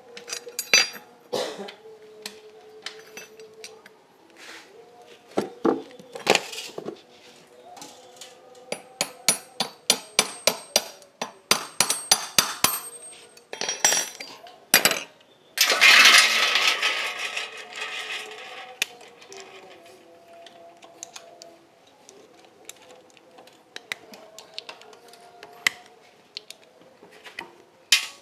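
Metal hand tools and engine parts clinking and tapping on a workbench, with a run of quick taps and then a louder rushing noise lasting about three seconds just past halfway.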